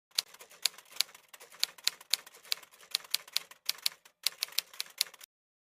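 Typewriter typing sound effect: quick, irregular key clicks, several a second, with a short pause about four seconds in, stopping a little before the end.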